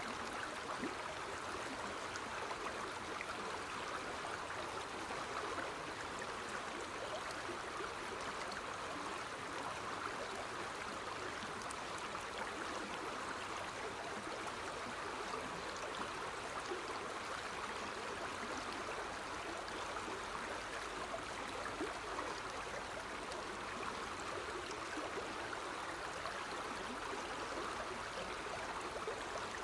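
Water flowing steadily over rocks, an even rushing sound that does not change.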